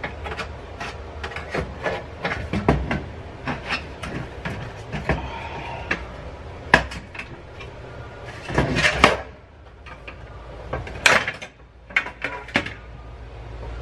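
Flat-blade screwdriver prying plastic end caps off a steel fluorescent lamp fixture: scattered clicks, scrapes and knocks of plastic and sheet metal, with a cluster of louder clatter about nine seconds in and a sharp knock about eleven seconds in.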